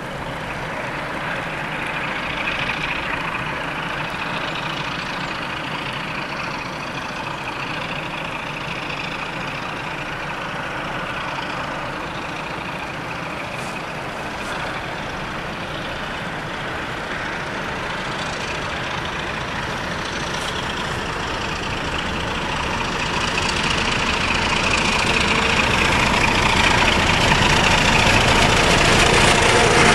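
Electroputere LDE 2100 diesel-electric locomotive's Sulzer 12LDA28 diesel engine working under load as it hauls a freight train of tank wagons, growing steadily louder over the last several seconds as it approaches and draws near.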